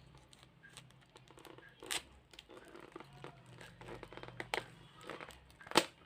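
Product packaging being handled and opened: crinkling and rustling with scattered clicks, a louder click about two seconds in and the loudest, sharp click near the end.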